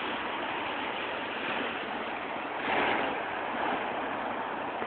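Typhoon wind and rain, a steady rushing that swells briefly about three seconds in.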